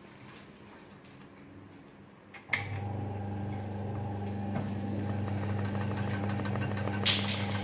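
Sewing machine stitching free-motion embroidery: after about two and a half seconds of quiet handling it starts with a click and runs steadily at a fast stitch rate, with another brief sharp click near the end.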